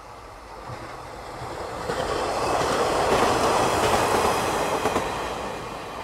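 A train passing close by on the main line: the rumble builds to its loudest about three to four seconds in and fades near the end, with a few sharp clacks of wheels over rail joints.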